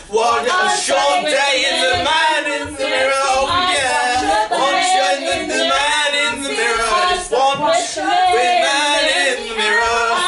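Several voices singing and calling out without clear words, overlapping and loud with no pauses, over dull low thuds.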